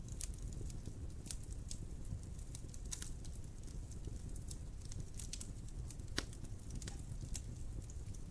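Wood fire in a fireplace crackling: irregular sharp pops and snaps over a steady low rumble of the flames, with one louder pop about six seconds in.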